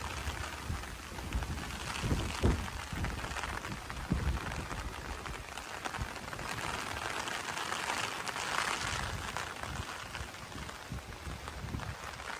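Rain from a short summer shower falling steadily, a dense hiss of drops, with a few low thumps about two and four seconds in.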